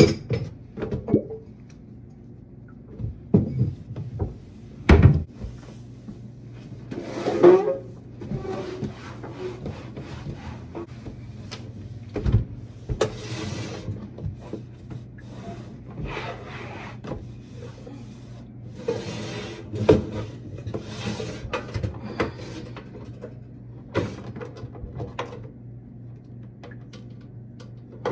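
Wiping a kitchen cabinet and counter with a cloth: rubbing and swishing strokes, with scattered sharp knocks and clatters of things being moved, over a low steady hum.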